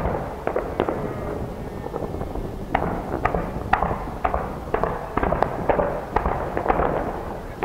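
Aerial fireworks bursting: a fast, irregular series of sharp bangs and pops over a steady low rumble.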